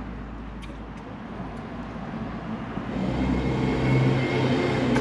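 A motor vehicle's engine running close by, with a steady low hum that gets louder about three seconds in, over street background noise.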